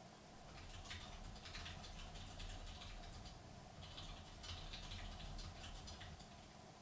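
Faint computer keyboard typing: quick runs of key clicks with a short pause about halfway through.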